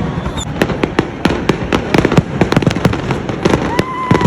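New Year's fireworks going off in rapid, irregular bangs and crackling pops, several a second, with a short steady tone near the end.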